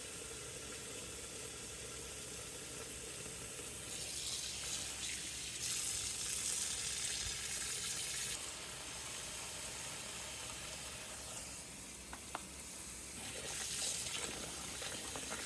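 Water in a sink as a cloth flag is hand-washed: a steady hiss of water with three louder rushes of splashing water lasting a couple of seconds each.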